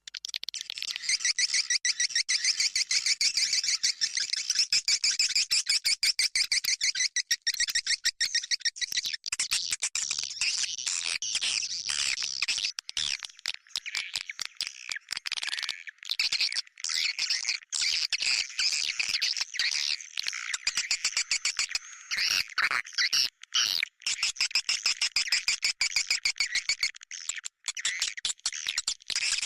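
Recorded swiftlet calls, a swiftlet lure track: dense, rapid twittering chirps, many a second, with brief breaks now and then.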